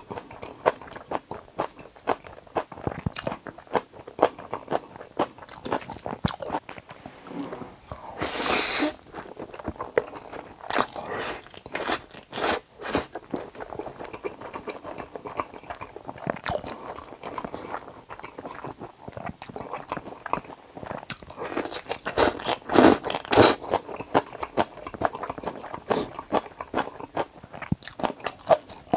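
Close-miked eating of Jjapaghetti black-bean instant noodles with fried eggs: steady chewing and biting with many small wet mouth clicks, and a few louder bursts about a third of the way in and again around three-quarters through.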